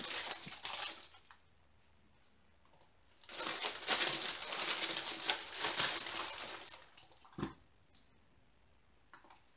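Clear plastic wrapping crinkling and rustling as it is pulled off a frame, in two bursts: a short one at the start and a longer one from about three to seven seconds in. A single sharp knock comes about seven and a half seconds in.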